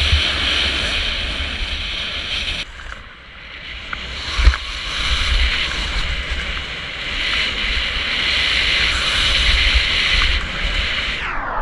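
Wind rushing over a helmet camera's microphone during a fast run down a snow slope, with the hiss of gear sliding over the snow. It goes briefly quieter about three seconds in, and there is a single thump about four and a half seconds in.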